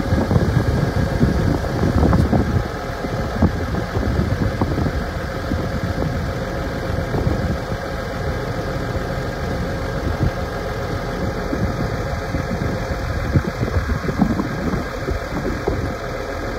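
New Holland T6080 tractor's six-cylinder diesel engine idling steadily.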